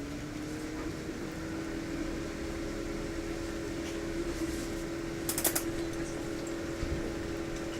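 A motor's steady hum, as from a fan or air-conditioning unit, starts up with its pitch rising slightly and then holding even. A quick cluster of sharp clicks comes about five and a half seconds in.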